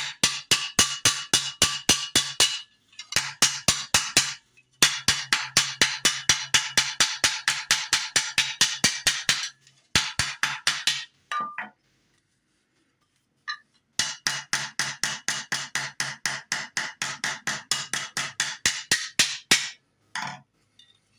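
Rapid hammer blows on a silver buckle, about five a second, each with a short metallic ring, shaping its dome. The blows come in several runs, stop for about three seconds midway, then pick up again.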